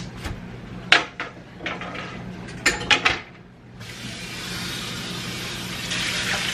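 A pan knocking and clattering in a kitchen sink, then the faucet running in a steady hiss from about four seconds in as the pan is rinsed.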